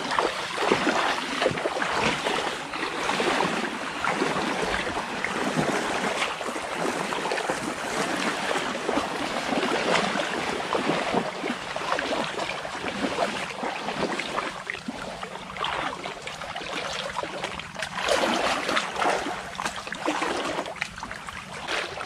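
Legs wading through shallow water, sloshing and splashing with each stride.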